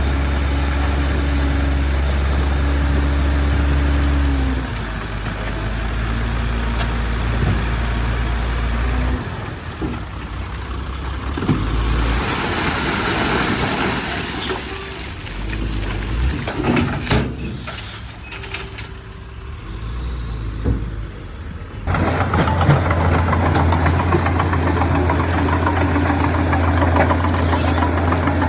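Heavy diesel earthmoving machinery running: bulldozer and dump truck engines, the engine note shifting several times. A hiss comes about twelve seconds in, scattered clanks and knocks follow, and a steady engine note returns abruptly about twenty-two seconds in.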